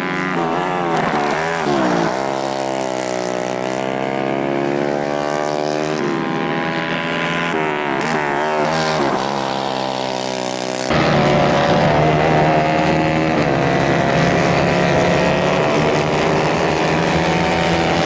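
Several small 150 cc kart engines racing, their pitch rising and falling as the karts accelerate, lift and pass. About eleven seconds in the sound turns abruptly louder and steadier, engines held at high revs.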